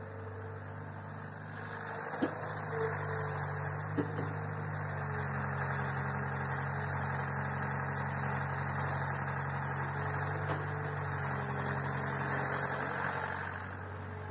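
Caterpillar hydraulic excavator's diesel engine running steadily while the machine digs and swings its boom. It gets louder from about two seconds in and eases off near the end. A few sharp knocks sound over it.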